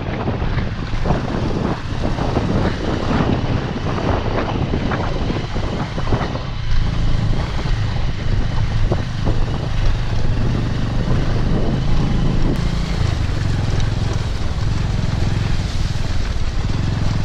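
Motorcycle engine running steadily at low revs while the bike rides over a muddy, slushy track, with scattered knocks from the rough surface in the first half.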